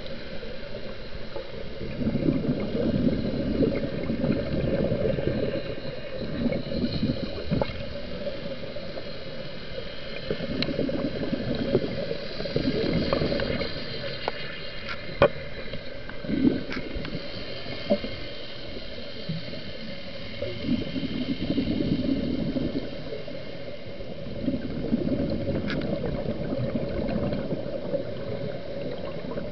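Underwater sound of a scuba diver's regulator: gurgling swells of exhaled bubbles every few seconds, over a steady low hum and a few sharp clicks.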